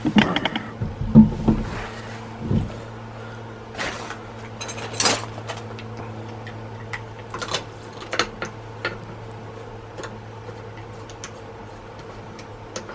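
Scattered clicks and knocks of hand tools on metal, loudest in a cluster about a second in and sparser after, over a steady low hum.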